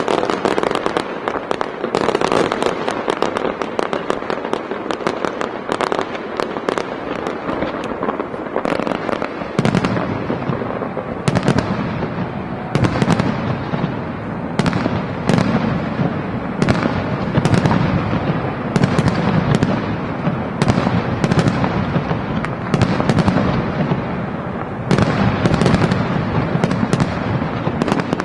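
Fireworks display in full barrage: continuous crackling and popping with shell bursts. About ten seconds in it grows deeper and heavier, with sharp bangs coming roughly twice a second.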